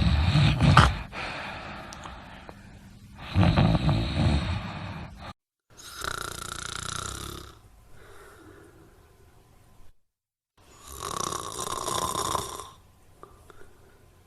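Snoring from separate recordings spliced together. There are two loud, low, rough snores, then a sudden cut to a breathier, hissier snore, and after another cut a second breathy snore.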